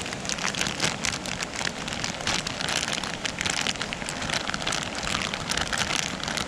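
Chopped vegetables and shrimp sizzling and crackling in a hot nonstick frying pan on a camp stove, while chunks of marinated steak are poured in from a plastic bag.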